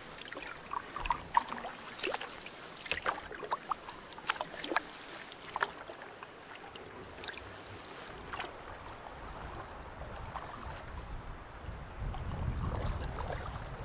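A canoe being paddled on calm water: paddle strokes and drips, with scattered light clicks and knocks over the first half. A low rumble comes in near the end.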